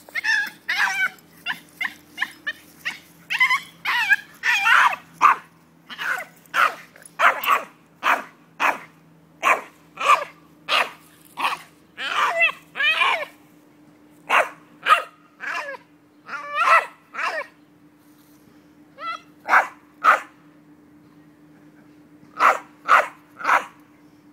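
Jack Russell Terrier barking, yipping and whining in a long excited run of short high calls, about two a second with a few brief pauses, worked up at the sight of a squirrel. A faint steady hum runs underneath.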